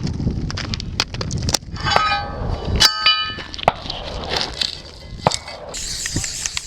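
Metal knocking and clanking, with a ringing metallic clang about three seconds in. Then the hiss of an aerosol spray-paint can starts near the end.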